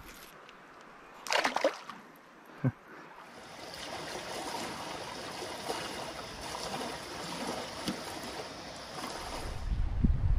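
Steady rush of shallow river water running over a rocky riffle, starting about three seconds in. Before it come a short loud sound about a second and a half in and a sharp click.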